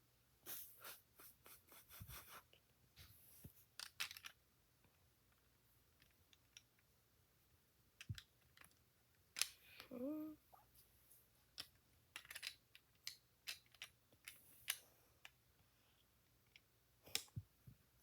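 Faint, scattered small clicks and rustles of Lego bricks being handled and pressed together. A short tone that dips and rises in pitch comes about ten seconds in.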